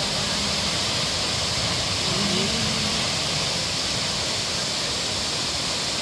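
Multi-tiered waterfall cascading into pools: a steady, even rush of falling water.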